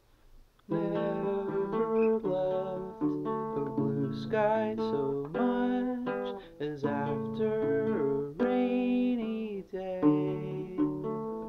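Acoustic guitar strummed with a man singing along; it starts under a second in, after near silence.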